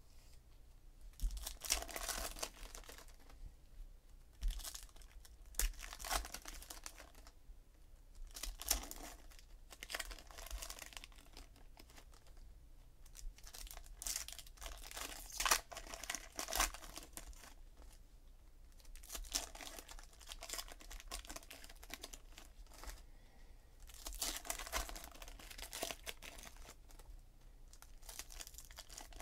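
Foil trading-card packs being torn open and crinkled by hand, in repeated bursts every few seconds.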